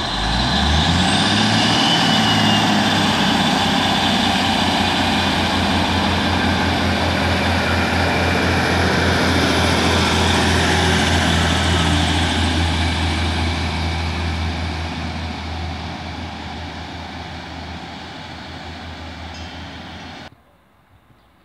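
Diesel multiple unit pulling out past the platform. Its underfloor diesel engines rise in pitch under power in the first second or two, then run loud and steady as the carriages go by. The sound fades over the last several seconds and cuts off suddenly near the end.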